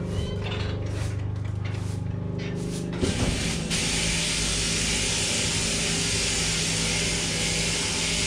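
Sheep-shearing machine running with a steady hum. About three seconds in, a steady hiss joins it.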